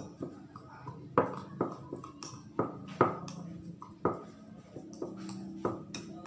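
A spoon knocking and scraping against a bowl as saga leaves are mashed in warm water, with irregular knocks that each ring briefly.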